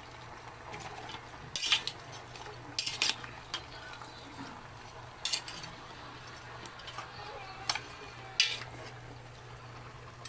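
Metal spoon scraping and clinking against a large cooking pot as sautéed chicken and papaya are stirred, with sharp scrapes every second or two over a steady low hum.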